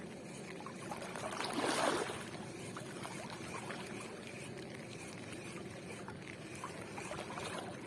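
Shallow seawater lapping and sloshing, with one louder swash for about half a second around one and a half seconds in.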